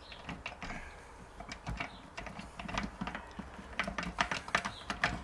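Steel gears and shafts of a BE4 manual gearbox clicking and clinking against each other as the two shaft assemblies are wiggled in the casing, catching on the reverse gear. The clicks come irregularly, sparse at first and quicker and louder in the last couple of seconds.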